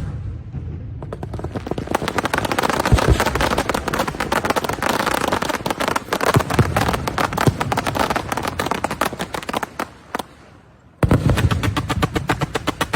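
Fireworks going off in a dense, rapid run of crackling bangs, with a few deeper booms among them. The crackling dies away briefly near the end, then starts again abruptly.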